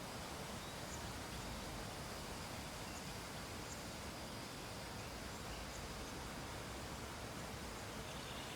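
Steady low hiss of background noise, even throughout with no distinct events: room tone picked up by the microphone.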